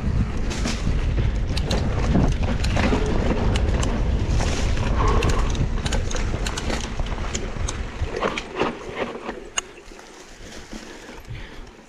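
Mountain bike being ridden on a trail, wind buffeting the camera microphone, with many short clicks and rattles from the bike over the ground. The wind rumble drops away about eight seconds in, leaving fainter clicks and rattles.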